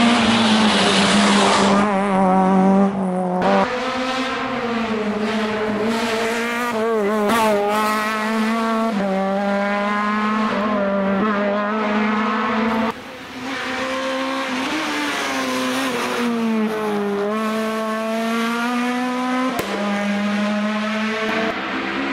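Rally cars driven hard on a closed road stage: engines revving up and dropping back through the gears, with tyre squeal. The audio changes abruptly about three seconds in, about halfway and near the end, as one car's pass gives way to the next.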